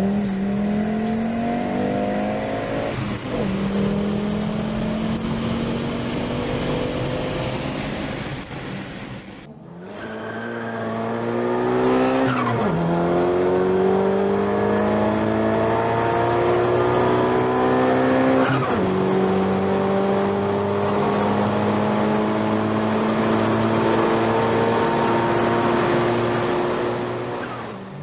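Turbocharged car engine pulling hard through the gears, its pitch climbing steadily in each gear and dropping sharply at the shifts, about 3, 12.5 and 18.5 seconds in, with turbo flutter on the throttle lifts. There is a cut to a second car about a third of the way through.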